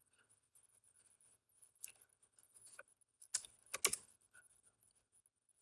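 A few faint, scattered clicks of a computer keyboard and mouse. The loudest cluster of taps comes about three and a half to four seconds in.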